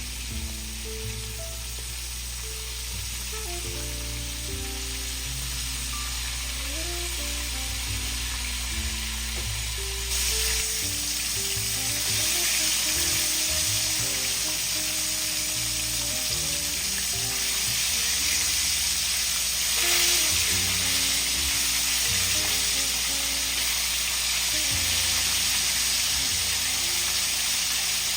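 Chicken frying in hot oil: a steady sizzle that grows louder about ten seconds in.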